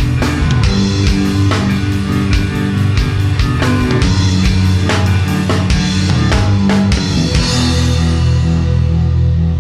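Rock band playing, with a drum kit and guitar. About seven seconds in the drums stop and a low chord is left ringing out as the song nears its end.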